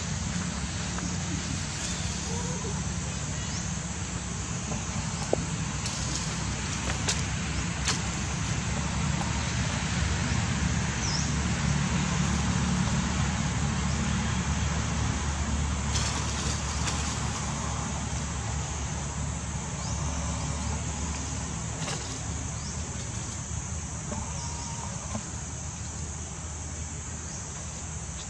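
An engine running steadily with a low hum, growing louder around the middle and easing off near the end, over a steady high hiss.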